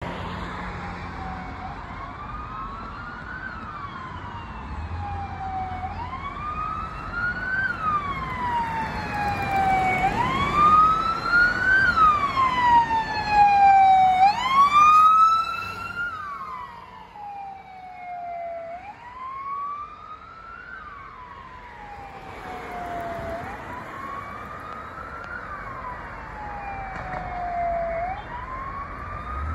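Fire truck siren wailing, its pitch rising and falling about once every four seconds. It grows loud as the truck passes, peaking about halfway through, then fades as the truck drives away.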